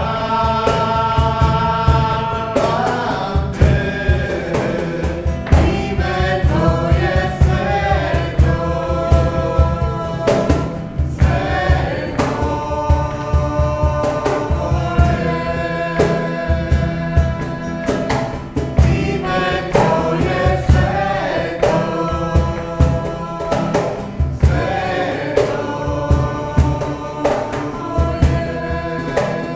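Christian worship song: men and a woman singing together to acoustic guitar strumming, over a steady low beat.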